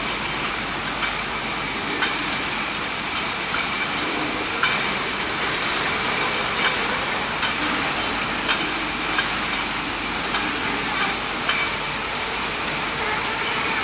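Bottle decapping and washing machinery running: a steady hiss with a faint high whine, and irregular short clicks and knocks.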